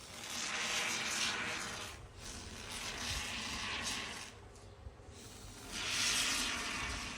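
Can of Great Stuff expanding spray foam hissing as foam is dispensed into holes in a seat cushion, in three spurts with short pauses between.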